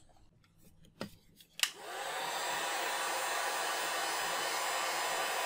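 Handheld electric heat gun: after two small clicks, it starts about one and a half seconds in and builds quickly into a steady airy blow. It is shrinking heat-shrink tubing over a battery pack.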